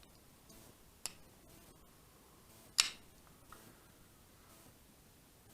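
Real Steel S6 titanium frame-lock folding knife being flicked open and closed: a light click about a second in, then a loud, sharp snap near three seconds as the blade swings out and locks open.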